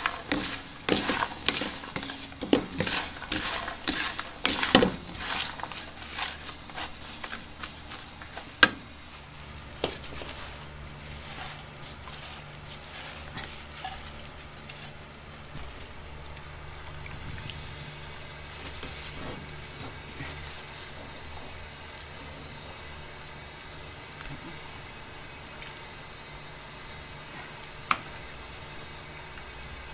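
A wooden spatula scraping and tossing dried anchovies and walnuts in a pan, in rapid rustling strokes for about the first nine seconds. After a sharp knock, a pot of red stew simmers steadily on a gas burner, a quieter even hiss with occasional ladle clicks.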